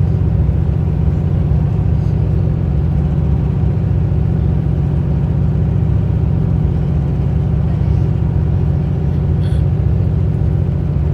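Steady low rumble of a moving vehicle heard from inside the cabin, running evenly without change.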